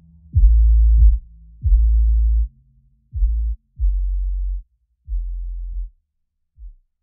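Background music of deep bass notes, each starting sharply and held for under a second. The notes get quieter and further apart and die away near the end.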